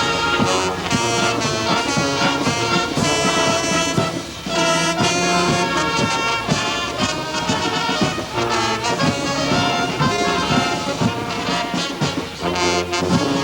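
A band playing a tune led by brass instruments, trumpets and trombones, with a steady beat.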